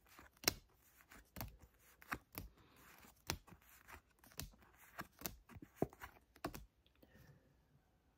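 Pokémon trading cards being flipped through one at a time by hand, with a sharp click at each card, about two or three a second, stopping a little before the end.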